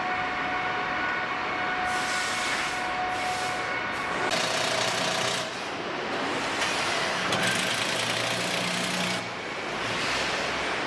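Truck assembly-line factory noise: a steady machinery hum with a few faint steady tones, and loud hissing that comes and goes in stretches from about two seconds in until near the end.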